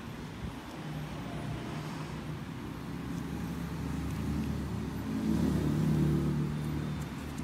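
A low, steady rumble with a faint hum under it, growing louder to a peak about five to six seconds in.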